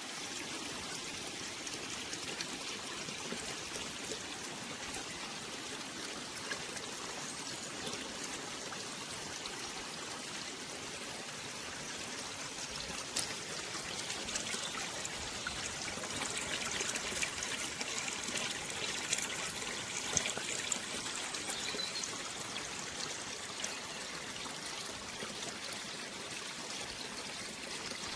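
Water trickling and splashing steadily down a small preformed garden waterfall stream.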